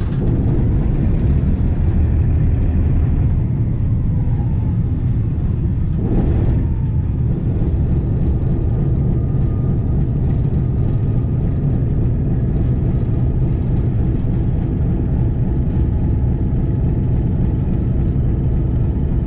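Diesel locomotive engine running steadily under way, a loud, even low rumble heard from the cab window as the locomotive rolls down the track, with a brief louder swell of noise about six seconds in.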